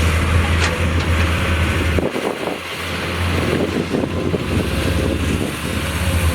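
Diesel engine of heavy earthmoving machinery running, a steady low drone that drops away briefly about two seconds in.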